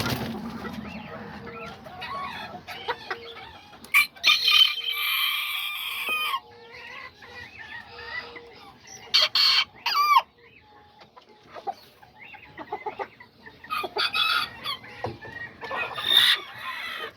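Kikiriki bantam rooster crowing: one long crow of about two seconds starting about four seconds in, among hens clucking. Brief sharp sounds about nine to ten seconds in and shorter calls near the end.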